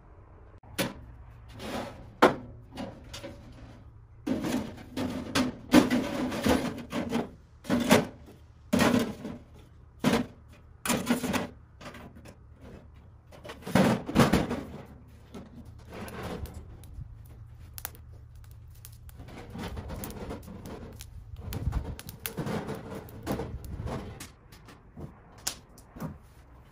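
Thin galvanized sheet-metal panels of a folding tent wood stove being handled and fitted together: a string of sharp clanks and knocks, some with a short metallic ring. It gives way to softer rustling and scraping as the stove goes into a canvas bag.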